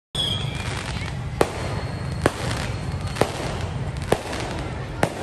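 Fireworks going off: sharp pops about once a second over a steady rush of outdoor background noise.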